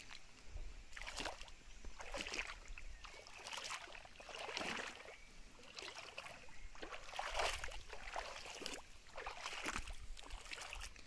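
Shallow creek water sloshing and splashing in short swishes, about one a second.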